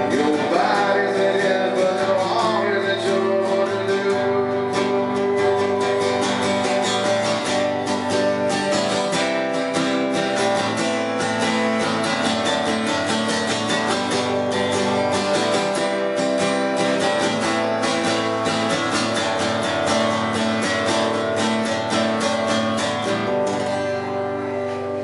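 Acoustic guitar strummed steadily in a live solo performance, with a man singing into a microphone at times; the playing thins out near the end as the song winds down.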